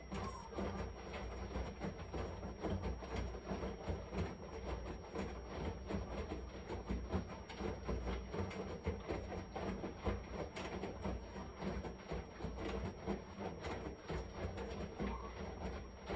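Washing machine running, a steady churning and rattling over a constant low hum.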